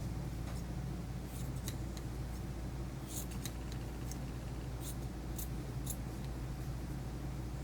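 Grooming shears snipping through a puppy's coat in short, irregular snips, about seven over a few seconds, over a steady low hum.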